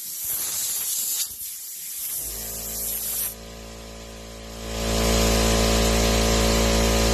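Compressed air hissing from a blow nozzle in two bursts over the first three seconds, then an air compressor's motor starting about two seconds in and running with a steady hum that grows much louder about five seconds in.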